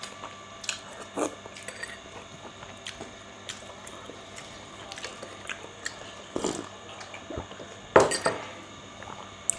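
Eating at a table: light, scattered clinks and taps of cutlery against plates and bowls, with a louder knock about eight seconds in.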